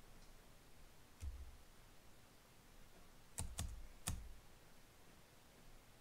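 A few separate clicks of a computer keyboard and mouse, three of them close together a little past halfway, over quiet room tone.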